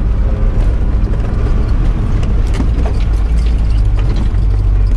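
Mercedes-Benz 711D van's diesel engine running steadily, heard from inside the cab, with scattered short knocks and rattles from the body as it rolls over a rough dirt track.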